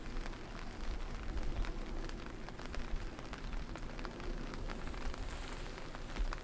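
Light rain pattering: many small ticks over a steady hiss, with a low rumble underneath.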